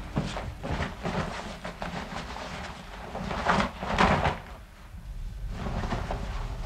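Clothing rustling as garments are handled, with several short knocks among the rustles; the loudest comes about four seconds in.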